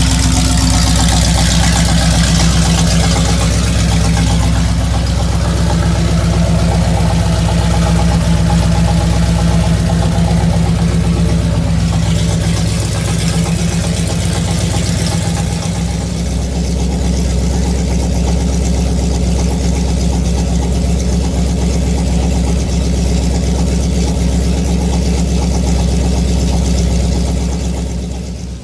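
Chevrolet 454 big-block V8 running steadily at idle, with a deep even exhaust note.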